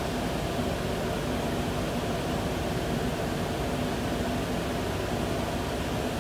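Steady mechanical hum with a fan-like rushing noise and a few held low tones, unchanging throughout: workshop machinery or ventilation running.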